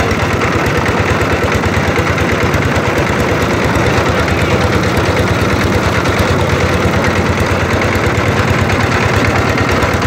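Inboard engine of a wooden motorboat running steadily under way, a fast, even chugging with the rush of water around the hull.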